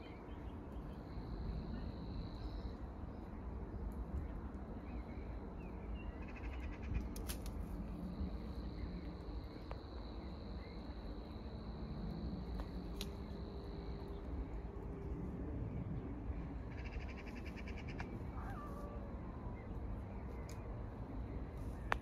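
Wetland ambience: birds calling now and then over a steady low wind rumble, with a thin high whine that comes and goes. Shortly after the middle comes a quick rapid chatter, then a harsh call that slides down in pitch.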